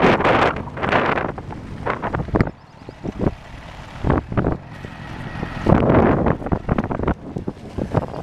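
Wind buffeting the microphone on a moving motorcycle in uneven gusts, over the bike's riding noise. The buffeting drops sharply about two and a half seconds in and comes back in gusts later.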